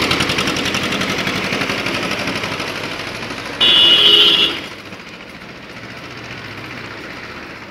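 Tractor engine chugging with a fast, even pulse as it drives past and fades away. About three and a half seconds in, a vehicle horn sounds loudly for about a second, followed by a quieter, steady engine hum.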